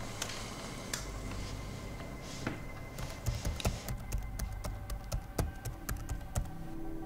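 Typing on a laptop keyboard: a few scattered keystrokes, then a quick run of key clicks from about three seconds in until near the end.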